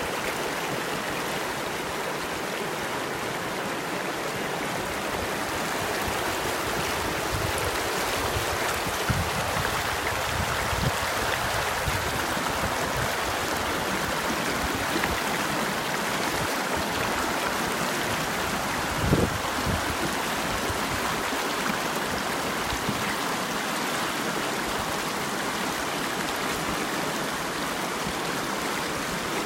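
A river running over rocks, a steady rushing and gurgling with a few brief louder splashes.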